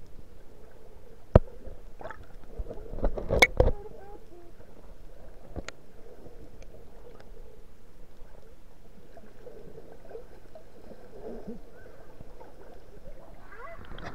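Muffled underwater sound picked up through an action camera's waterproof housing, with sharp clicks and knocks about a second and a half in, a cluster around three and a half seconds, and one more near six seconds. The sound brightens and opens up as the camera comes to the water's surface near the end.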